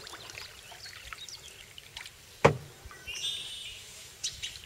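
Canoe paddling on calm floodwater: soft splashing and drips from the paddle, with one sharp wooden knock about halfway through. A bird calls briefly just after the knock.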